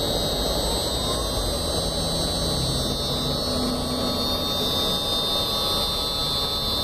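1.5 kW CNC spindle motor on a variable frequency drive, running steadily at speed with a constant high-pitched electrical whine over a low hum.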